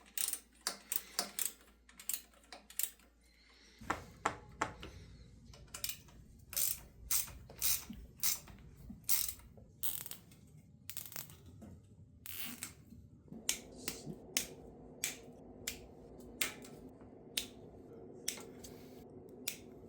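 Close clicks and taps of small metal hardware and hand tools being handled while a bicycle rack is bolted on with P-clamps, nuts and bolts. The sharp, irregular clicks come about one or two a second over a faint low hum.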